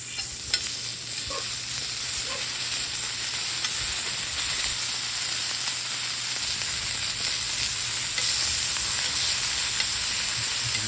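Food sizzling as it fries in a hot pan: a steady hiss with a few small clicks.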